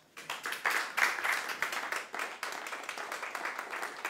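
Audience applause: many hands clapping, starting a moment in and swelling within the first second, then going on steadily.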